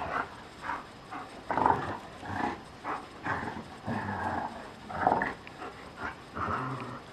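Two Briards play-fighting: a run of short growls, grunts and scuffles at irregular intervals, loudest about a second and a half in and again about five seconds in.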